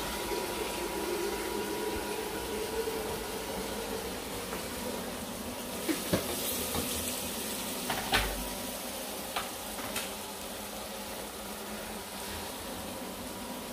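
A steady hiss of kitchen noise, with a few sharp clinks of kitchenware about six, eight and ten seconds in.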